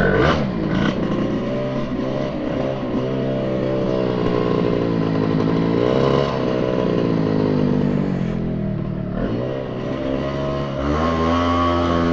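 Honda Vision SA50 scooter's small two-stroke engine catching right at the start, then running with its pitch wavering up and down as the throttle is worked. Near the end it picks up again as the scooter pulls away.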